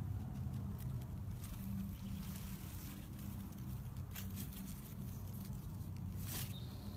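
Tomato leaves and stems rustling and brushing as the plants are handled, with a few soft clicks, over a low steady hum.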